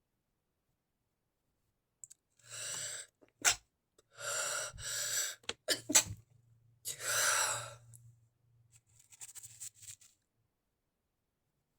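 A person stifling induced sneezes: breathy, gasping build-ups with two short, sharp, held-in sneeze bursts, the loudest sounds, about three and a half and six seconds in, followed by faint rustling.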